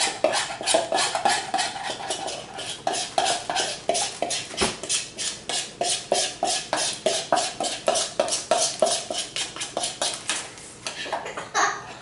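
Repeated taps on an upturned mixing bowl, about four to five a second, knocking the last of the marinade out into a zip-top freezer bag.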